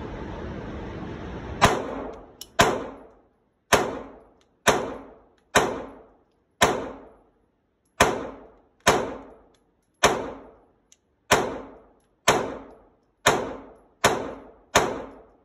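Smith & Wesson M&P9 Shield Plus 9mm pistol fired about fourteen times at a steady pace of roughly one shot a second, each sharp report echoing off inside an indoor shooting range.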